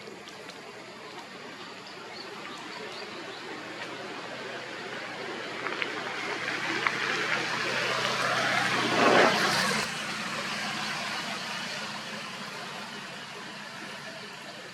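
A motor vehicle passing by: a steady engine hum with tyre and road noise that grows louder, peaks about two-thirds of the way through, then drops off sharply and fades.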